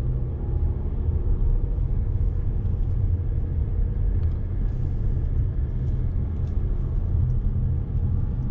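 A car driving, its engine and tyres making a steady low rumble.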